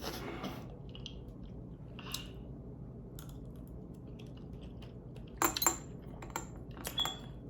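Eating utensils clinking against a dish while eating noodles: a few sharp, light clinks with a brief ring, mostly in the last couple of seconds.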